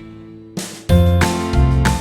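Background music: after a short, quieter pause it comes back in about a second in, with a bass line, held notes and a light tinkling beat.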